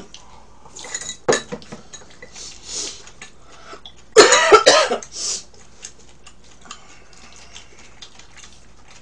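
Utensils clicking and clinking against bowls and the griddle plate during a meal, in scattered sharp taps. A loud burst of a person's voice comes just after four seconds in.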